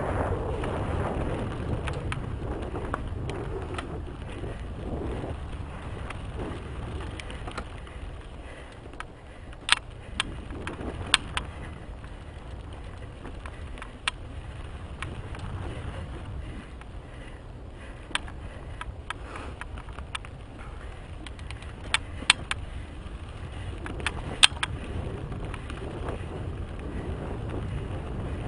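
Mountain bike rolling fast down a dirt singletrack: tyre noise on the dirt and wind buffeting the microphone, with sharp clicks and rattles from the bike over bumps, a few of them louder near the middle and later on.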